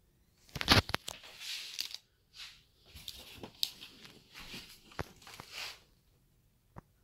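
Handling noise as a 32-inch flat-screen TV is turned over and stood upright on a bed: rustling and scraping with several knocks, the loudest a thump about a second in, and one short click near the end.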